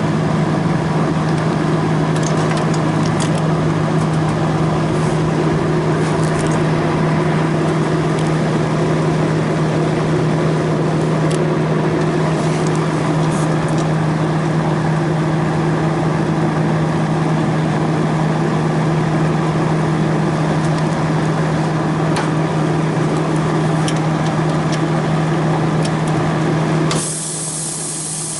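Refrigerant recovery machine running steadily, reclaiming R-409A refrigerant from the system: a constant low hum with a hiss over it. Near the end the sound suddenly gets quieter, though the hum goes on.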